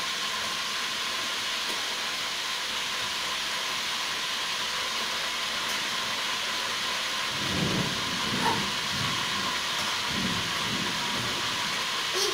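Floured pork liver deep-frying in hot oil in a wok: a steady sizzling hiss, with some duller handling sounds from the utensils about halfway through.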